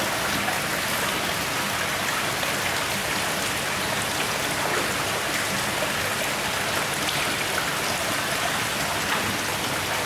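Water pouring from an inflow pipe into a concrete koi tank: a steady splashing rush.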